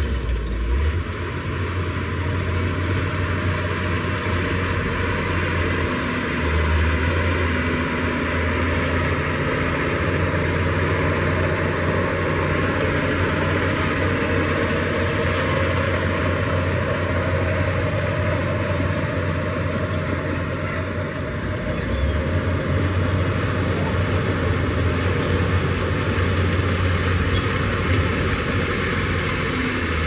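Diesel engine of heavy earthmoving machinery running steadily, with a strong low drone that shifts twice.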